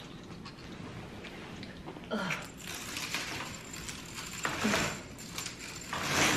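Bead chain of a heavy roller shade rattling as it is hauled down hand over hand in several pulls, with strained breaths of effort between.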